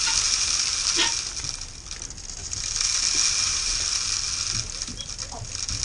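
Chicken feed pouring from a bucket into a feeder tube, a steady hiss of rattling grain that thins out about two seconds in and then picks up again.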